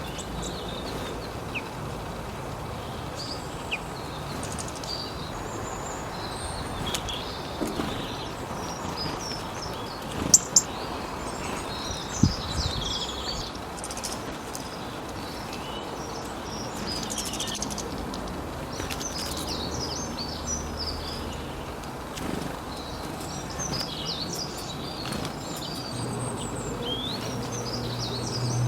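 Several small birds chirping and twittering in short, scattered calls over a steady background hiss, with two sharp clicks about ten and twelve seconds in and a low hum near the end.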